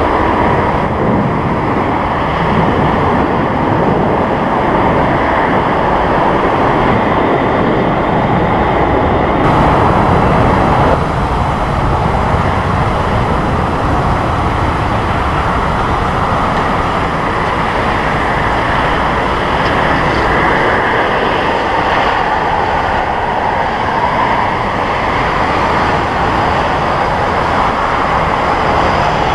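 Steady, loud jet engine noise from a Boeing 747-400 freighter's four engines as it flies low on approach to land.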